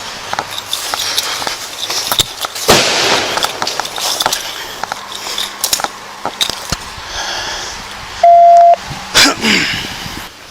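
Scattered clicks and crackling, with a brief rushing noise about three seconds in and a loud half-second police radio beep near the end.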